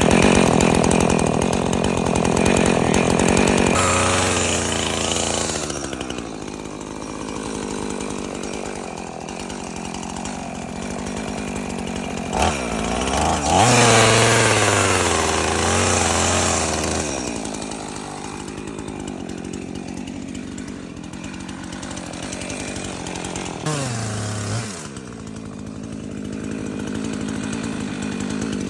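Husqvarna 450 two-stroke chainsaw running and cutting wood. Engine speed changes under load: loud at high revs at first, dropping about four seconds in, picking up again around the middle, with a short rev-up near the end.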